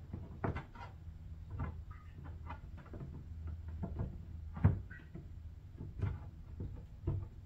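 Fingers pressing and working a strip of softened moldable plastic putty against a hollow plastic blow-mold shell: scattered soft clicks and taps, with one louder tap a little past halfway, over a low steady hum.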